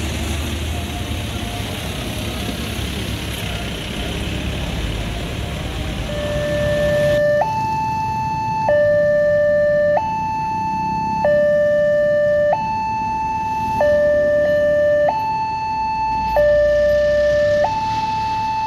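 Steady street-traffic noise, then from about six seconds in a railway level crossing's electronic warning alarm. It plays two tones, low and high, that swap back and forth about every second and a quarter. The alarm signals that a train is approaching and the barriers are closing.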